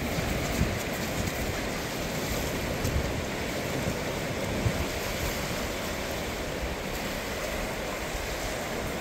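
Small sea waves breaking and washing up the shore in a steady surf, with wind buffeting the microphone.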